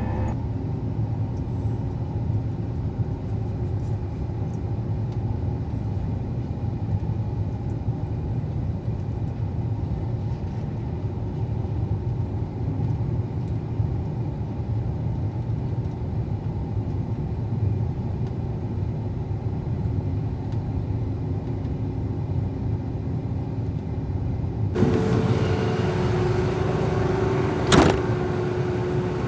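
Steady low rumble of a motor vehicle running. About 25 s in, the sound changes abruptly to a brighter, fuller rumble, with one sharp click near the end.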